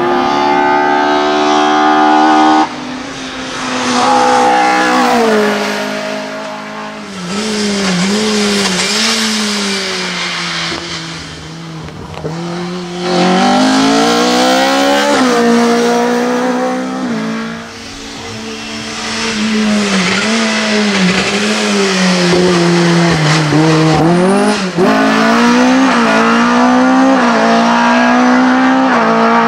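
Opel Kadett C City hillclimb race car's engine at full throttle, rising in pitch through each gear with sharp drops at the gear changes, and easing off for corners several times.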